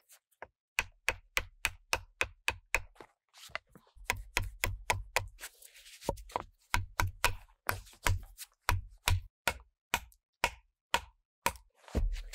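Axe chopping into a peeled wooden log to cut a notch: a long run of quick, sharp strikes, about three to four a second, with brief pauses between bursts.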